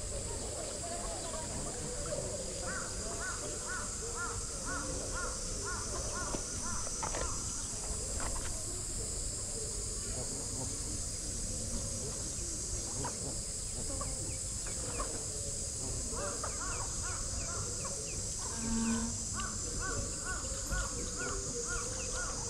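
Birds calling in runs of short, quickly repeated notes, twice for several seconds, over a steady high insect drone.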